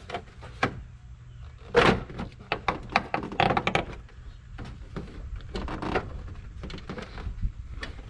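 Hard plastic knocks and clicks from a Toyota Tacoma's grille being pried and pulled loose from its clip tabs by hand. The loudest knock comes about two seconds in, followed by clusters of smaller clicks.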